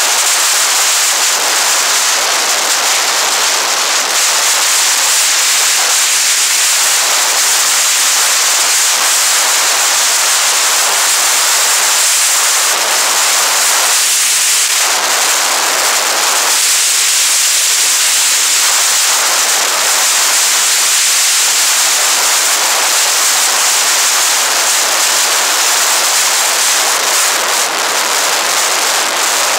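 Steady, loud rushing hiss of wind over the microphone of an action camera mounted on a moving motorcycle, with no clear engine note through it. The rush thickens briefly twice around the middle.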